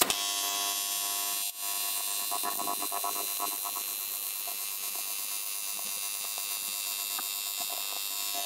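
AC TIG welding arc from an Arccaptain TIG200P on thin aluminium sheet, pulse on: a steady electric buzz with hiss and hum. It dips briefly about a second and a half in and stops near the end.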